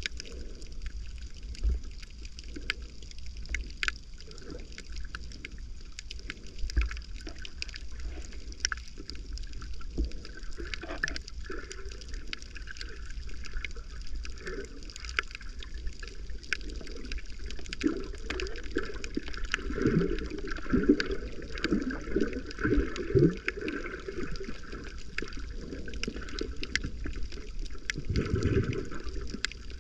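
Water heard with the microphone under the surface: a muffled, gurgling wash with scattered sharp clicks, growing into louder bubbling gurgles for several seconds past the middle and again near the end.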